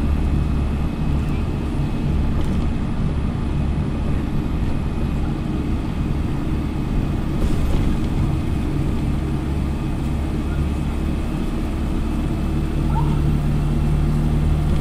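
Dennis Dart single-decker bus's diesel engine being thrashed at speed, heard from inside the saloon over steady road and tyre noise. The engine note strengthens about twelve seconds in.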